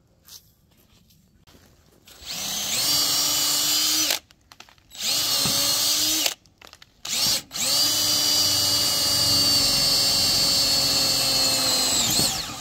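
Cordless drill with a twist bit boring a bolt hole through a treated pine board and into a galvanized steel frame pipe. It comes in several runs: about two seconds of drilling, a shorter run, a brief blip, then a long steady run of about five seconds near the end, each spinning up to a steady whine.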